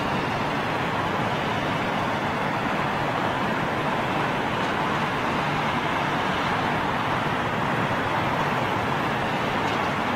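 Boeing 777 twin-jet taking off at full takeoff thrust: a steady rushing jet roar heard from a distance, with no rise or fall.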